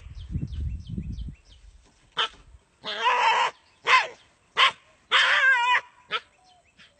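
A dog barking in short, loud barks, six of them in the second half, the longest one wavering in pitch; a low rustling rumble comes first.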